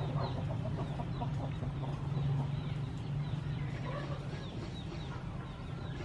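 Birds calling outdoors: many short, quick chirps and some lower calls, with clucking, over a steady low hum.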